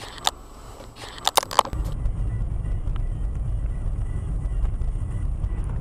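A few sharp clicks in the first second and a half, then from about two seconds in the steady low rumble of a car driving, picked up by a dashcam microphone inside the car.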